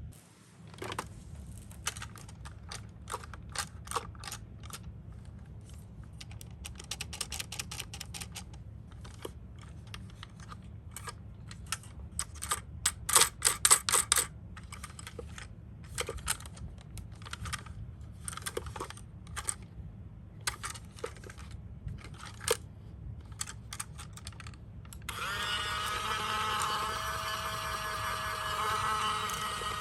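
Miniature toy ambulance cars clicking and clattering against each other and their box in irregular runs of sharp clacks, loudest about halfway through. About 25 seconds in, a toy ambulance's electronic siren starts sounding.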